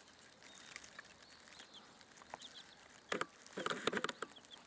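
Cheonggye chicks peeping faintly with short, high, falling cheeps, joined about three seconds in by louder bouts of rustling and scratching.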